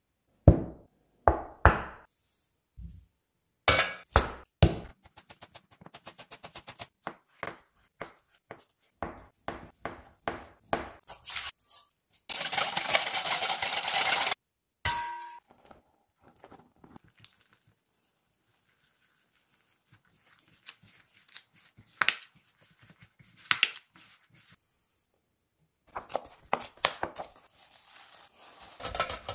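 Kitchen sounds of making dough: a run of sharp clinks and knocks of utensils on a stainless steel mixing bowl, then fast stirring of liquid in the bowl for about two seconds near the middle, and light crinkling near the end as plastic wrap goes over the dough.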